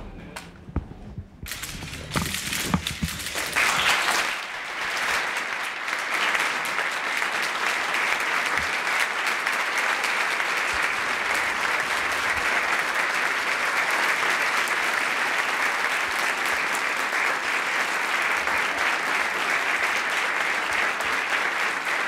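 Audience applauding. It builds over the first few seconds, then holds steady.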